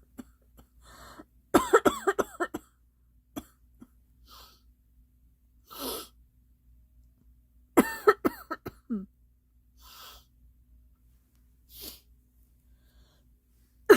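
A girl coughing in fits. Two bursts of several rapid coughs come about a second and a half in and again about eight seconds in, with fainter single sounds in the gaps between them.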